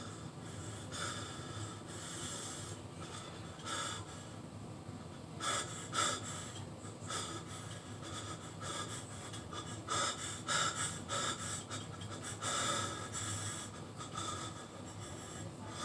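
A person breathing hard: irregular, hissy breaths about one or two a second.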